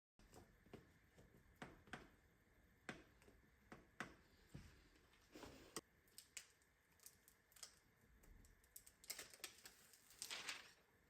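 Faint, irregular light clicks and taps, with brief rustles about five and ten seconds in: peel-and-stick wall tiles being handled and pressed into place.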